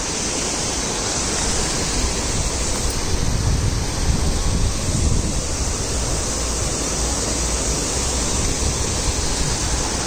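Steady rush of shallow river water running over rocks and spilling down a low stone weir.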